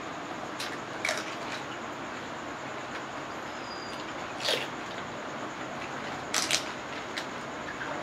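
Panipuri shells cracking as they are poked open with the thumb and crunched while being eaten: several short, crisp cracks at irregular moments over a steady background hiss.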